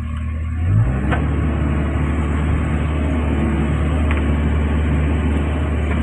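Excavator diesel engine revving up a little under a second in, then running steadily at higher revs, with a couple of faint knocks.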